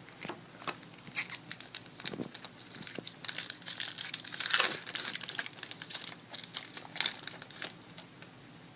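Crinkling of a foil trading-card pack wrapper as the pack and its cards are handled: quick irregular crackles, thickest in the middle.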